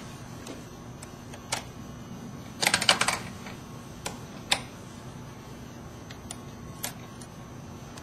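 Light plastic clicks and taps from hands working the fiber holders and clamps of a Fitel S177 fusion splicer: single clicks every second or two, with a quick rattle of clicks about two and a half seconds in, over a faint steady hum.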